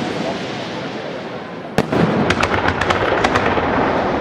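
Aerial fireworks display: a dense continuous rumble of shells, a sharp bang a little under two seconds in, followed by a rapid run of crackling pops.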